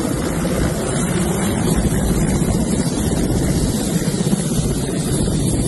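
Mi-17 helicopter idling on the ground, its turbines and main rotor making a steady hum with rotor wash buffeting the microphone.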